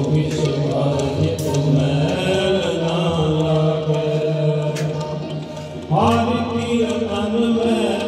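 Sikh shabad kirtan: voices singing gurbani in a slow, chant-like way over held, sustained tones. A new, louder sung phrase begins about six seconds in.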